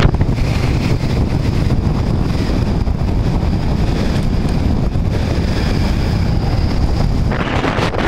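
Strong wind buffeting the microphone: a steady, heavy rumble. A hissier gust comes in near the end.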